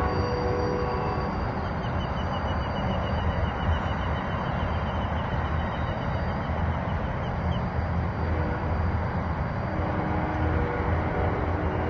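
The last of a distant train horn dies away in the first second, leaving a steady low rumble. From about two to eight seconds in, a bird trills in a rapid, high, even series. Faint horn-like tones come back low in the mix near the end.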